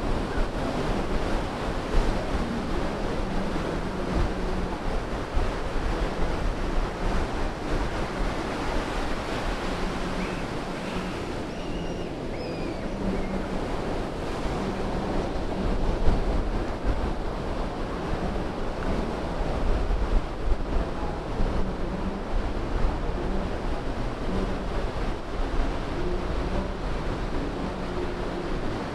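Ocean surf breaking and washing up over wet sand around the pier pilings, a continuous wash that swells and eases, with wind rumbling on the microphone.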